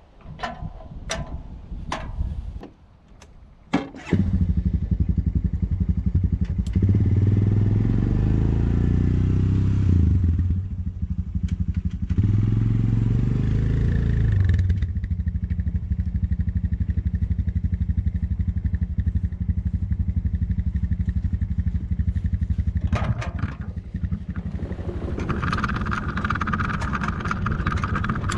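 A few knocks and clatters, then the petrol engine of a Lucas portable sawmill comes in loud and sudden about four seconds in. It revs up and down twice, then runs steadily. Near the end a higher whine joins in as the saw carriage is pushed along its rails.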